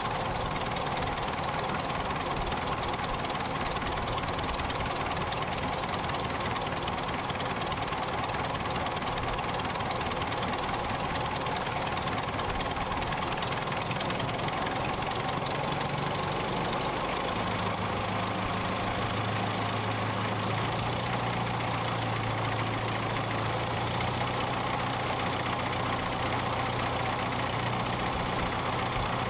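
The de Havilland DH51 biplane's 120 hp Airdisco air-cooled V8 engine running steadily on a ground run, propeller turning. A steady low hum joins about two-thirds of the way through.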